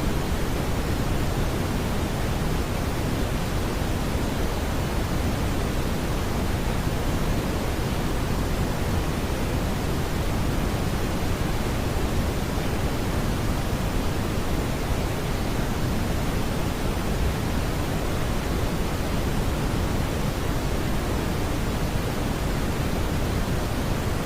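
Smoothed brown noise: a steady, even rush of noise weighted toward the low end, with no tones or changes.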